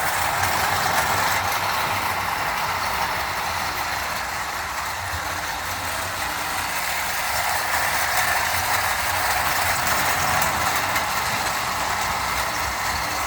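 Vintage Marx Commodore Vanderbilt O-scale electric toy train running on track, with its tin cars: a steady whir and rattle of the motor, gears and wheels. It fades a little a few seconds in and grows louder again later on as the train goes round the loop.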